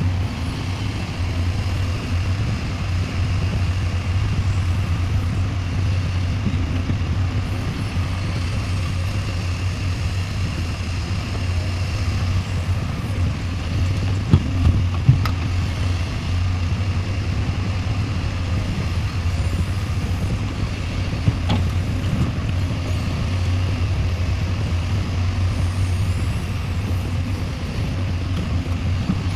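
Heavy diesel earthmoving machinery running steadily, a deep engine drone, with a few sharp knocks around the middle.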